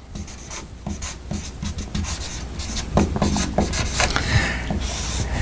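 Red dry-erase marker rubbing and squeaking across a whiteboard as a word is written in a run of short strokes, with a few brief squeaks about three seconds in.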